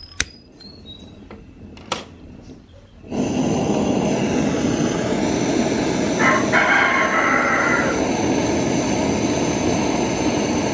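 A few small metallic clicks, then a mechanical alarm clock's bell ringing: the hammer rattles rapidly against the bell for about eight seconds and stops abruptly.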